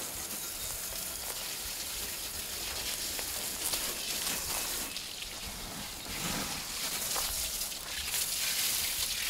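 Garden hose spraying water onto a rototiller: a steady hiss of spray with water spattering off the metal, washing caked mud off it.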